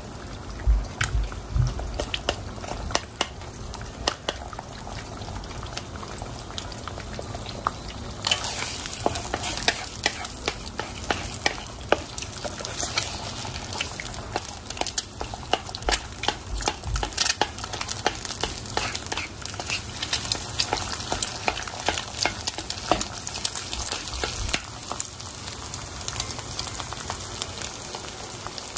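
Eggs sizzling in hot oil in a stainless steel wok, with a wooden spatula repeatedly scraping and knocking against the metal as it breaks the eggs into chunks. The sizzle grows louder about eight seconds in.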